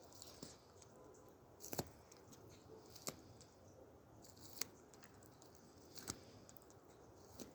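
A bird of prey feeding, its beak tearing and snipping at meat: four sharp, short clicks at irregular intervals over faint background hiss.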